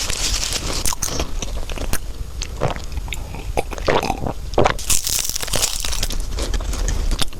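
Close-miked chewing of flaky egg tart pastry: irregular crisp crunches and crackles with wet mouth sounds, a few louder crunches in the middle.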